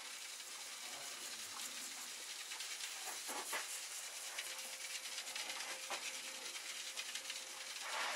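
Fine scenery dirt sifting through a handheld colander screen onto a diorama base: a soft, steady hiss of falling grains with a few louder rustles as the screen is shaken.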